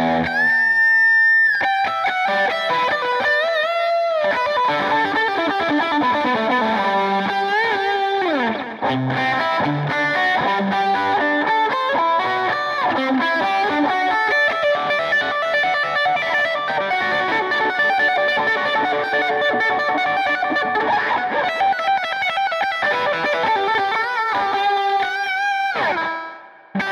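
Ibanez electric guitar played through distortion: a long held high note, then fast lead runs with a long downward pitch slide about eight seconds in. Near the end the sound dips with a falling sweep and starts up again.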